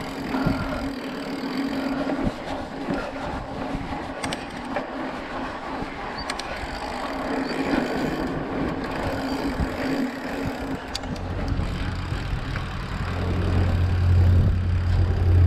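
Mountain bike tyres rolling over a dirt and gravel track, with steady road noise. About eleven seconds in, a deep steady engine hum comes in and grows louder: a canal narrowboat's engine running alongside.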